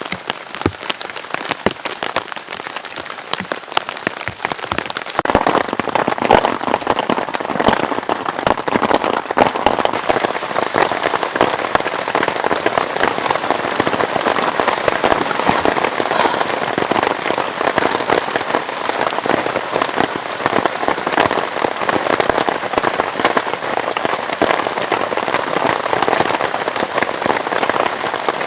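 Heavy rain falling, a dense, continuous patter of drops that grows louder and heavier about five seconds in.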